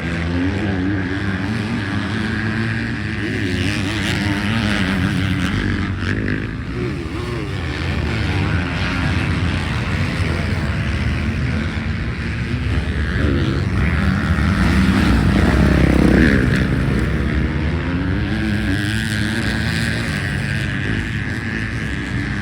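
Motocross bike engine being ridden hard, its pitch rising and falling with the throttle, with a longer climb to its loudest about two-thirds of the way in.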